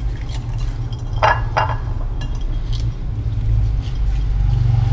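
Hands rubbing seasoning into raw chicken in a small metal bowl, with light clinks of the bowl and a couple of brighter clinks about a second in, over a steady low hum.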